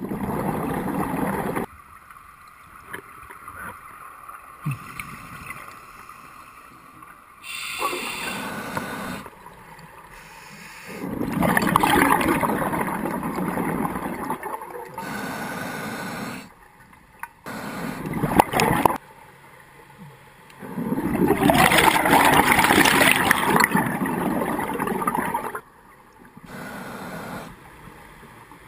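Scuba diver breathing underwater through a regulator: loud bubbling rushes of exhaled air every few seconds, some lasting several seconds, with quieter hissing inhalations between.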